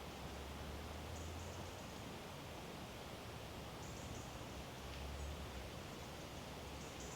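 Quiet woodland ambience: a faint steady hiss with a low rumble underneath, and a few brief, very high, faint chirps about a second in, around four and five seconds, and near the end.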